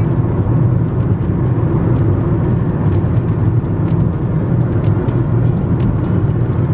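Steady road and engine rumble inside a moving car's cabin, with music playing along with it.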